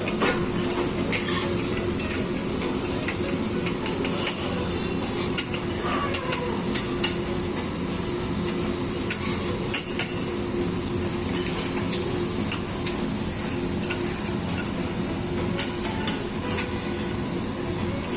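Food sizzling in a hot wok while a metal spatula stirs and scrapes it, with frequent irregular clanks of metal on metal and a steady hum underneath.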